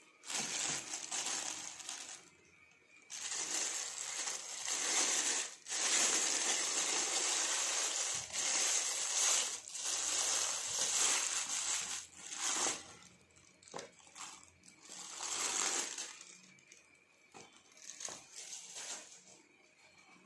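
Packaging being handled and opened: irregular rustling and scraping, nearly continuous for the first twelve seconds, then breaking into shorter bursts near the end.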